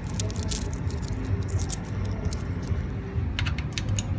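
Coins being fed into a vending machine's coin slot, clicking and clinking through the coin mechanism: a few clicks near the start, then a quick run of clicks in the last second, over a steady low hum.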